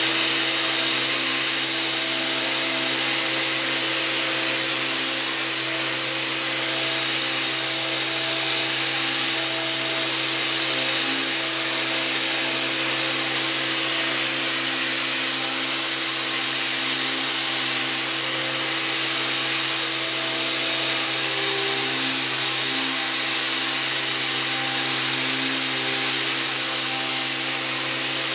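Mirka CEROS electric random orbit sander running steadily with 80-grit Abranet mesh abrasive, sanding the end grain of dovetail joints flush on a wooden drawer, with a Fein shop vacuum pulling dust through the pad: a steady hiss over a low motor hum.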